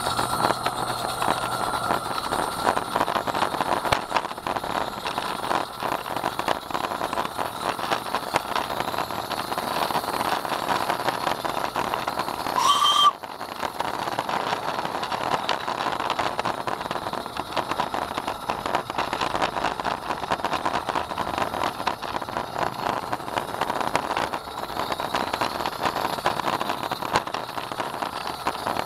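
A 16 mm scale garden-railway train on 32 mm gauge track, running along with a steady busy clatter of wheels over the rails. About 13 seconds in comes one short, slightly rising whistle blast.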